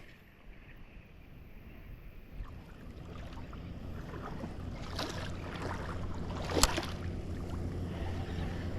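A boat's engine running steadily at a distance, a low hum that grows gradually louder as it nears. Two sharp clicks stand out about halfway through.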